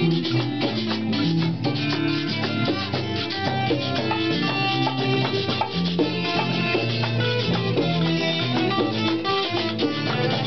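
Live Puerto Rican parranda music from a small acoustic group: guitars and a cuatro strummed and plucked, with a hand drum keeping a steady beat.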